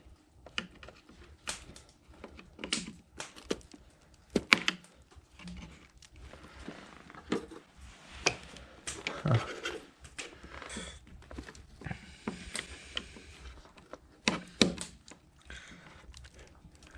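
Irregular plastic clicks, knocks and rustling of an engine wiring harness and its clips and connectors being handled and worked loose by hand, with two sharper knocks about four and a half seconds in and about fourteen and a half seconds in.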